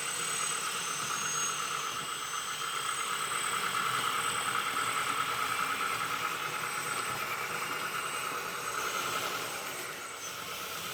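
Simulated diesel engine idling from the LESU DT60 RC bulldozer's original sound board, played through its small onboard speaker. A thin, steady high whine runs alongside it.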